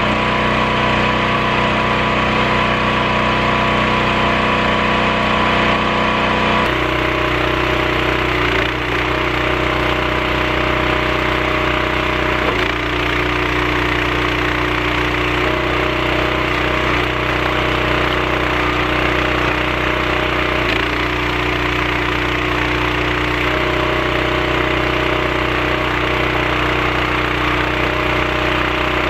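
Gas engine of a hydraulic log splitter with a 28 gpm pump running steadily, its note shifting every few seconds as the ram is worked through rounds of firewood.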